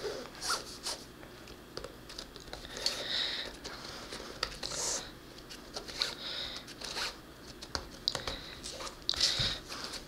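Waxed laces pulled through the eyelets of an inline hockey skate: irregular rubbing and swishing strokes, with light handling noise from the skate.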